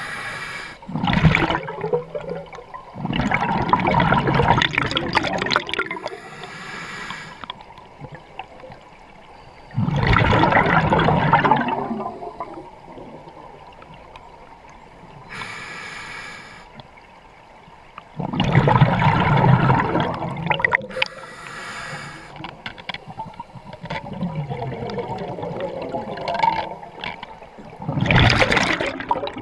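A scuba diver breathing underwater through an open-circuit regulator: a short hissing inhale, then a long rush of exhaust bubbles. The cycle repeats about every eight seconds, four or five breaths in all.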